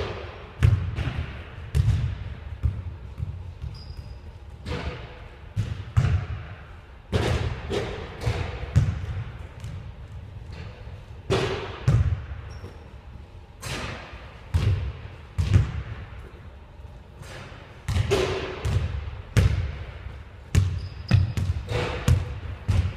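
Basketball bouncing on a hardwood gym floor: a series of uneven thuds, each trailed by a short echo in the large gym.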